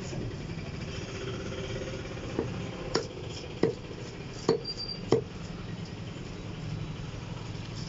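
Heavy cleaver chopping a large fish on a wooden log block: five sharp chops about half a second apart in the middle, then a pause, over a steady low hum.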